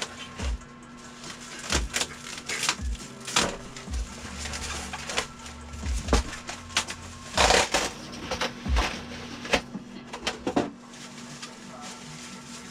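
Packaging and parts being handled by hand: an irregular run of clicks and knocks, with a longer rustle about seven seconds in.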